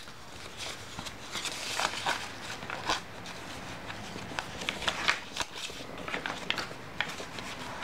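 Paper and card rustling and crackling as the pages of a handmade paper journal are turned and handled, with many irregular small crisp ticks and flicks.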